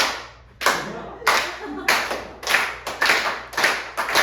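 Hand claps in a steady rhythm, about one every 0.6 seconds, coming slightly quicker near the end.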